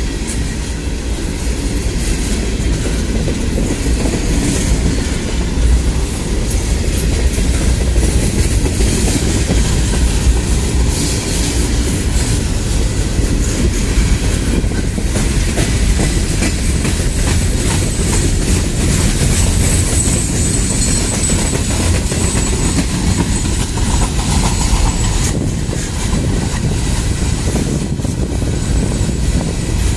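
A Norfolk Southern train passing close by: its cars roll past with a steady loud rumble and the wheels click over the rail joints. A faint high wheel squeal rises briefly around two-thirds of the way through.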